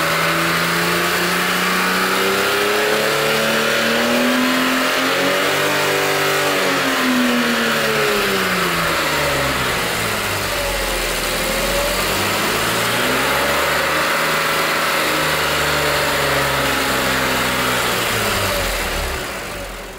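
BMW E46 M3's S54 3.2-litre straight-six running with its freshly rebuilt VANOS, revved slowly up and back down twice. The pitch peaks about six seconds in and again around fifteen seconds in, and the sound fades away near the end.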